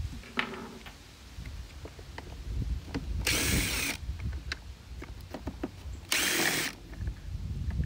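Cordless drill running in two short bursts, about three and six seconds in, driving a screwdriver bit to back the screw out of a plastic ride-on toy's steering wheel. Light clicks and knocks of plastic being handled come between the bursts.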